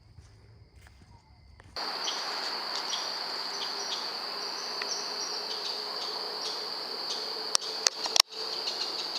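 Steady, high insect trill, like crickets singing in the fall woods, starting faint and becoming much louder with outdoor background noise after a couple of seconds. A few sharp clicks come near the end.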